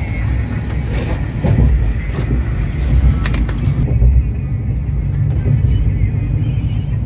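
Passenger train running, heard from inside the coach: a steady low rumble with occasional sharp clicks and rattles.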